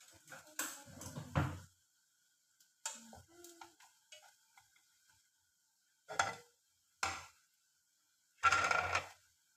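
Kitchen handling noises while frying: wooden chopsticks tapping and scraping in a frying pan, a few separate knocks, and a louder, longer handling noise near the end.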